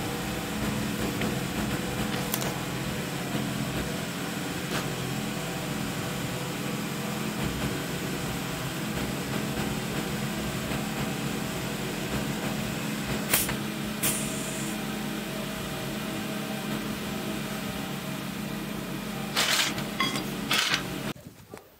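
Audi A8 D3 air suspension compressor running with a steady electric-motor hum, then cutting off suddenly near the end. A few sharp clicks come partway through and just before it stops.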